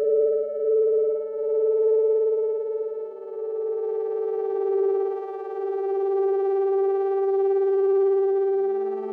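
Modal Electronics Cobalt8 virtual analog synthesizer playing long sustained notes. The main pitch steps slightly lower about three seconds in, and the tone then grows brighter as higher overtones come in. A low note fades out early and returns near the end.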